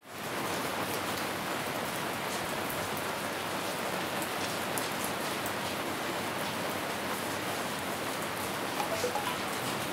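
Steady rain falling, with scattered sharp drip taps; it fades in quickly at the start.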